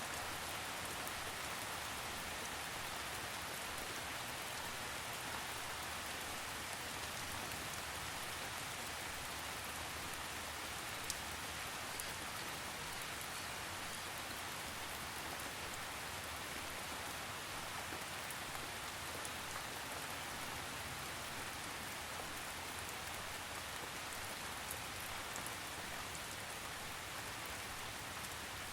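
Steady rainfall: an even, unbroken hiss with a few sharper drop ticks here and there.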